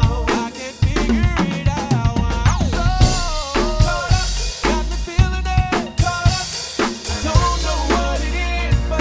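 Acoustic drum kit played live in a busy improvised groove, with quick strikes on the kick, snare, rims and cymbals. Behind it runs a backing track with a deep, held bass and a melodic line that slides up and down in pitch.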